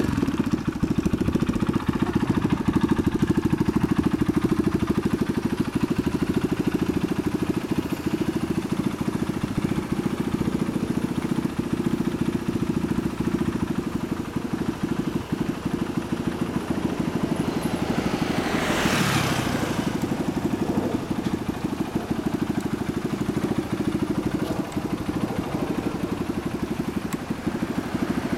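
Honda Monkey's small single-cylinder four-stroke engine idling steadily through a Yoshimura exhaust, a fast even putter. About two-thirds of the way through, a passing vehicle briefly swells and fades over it.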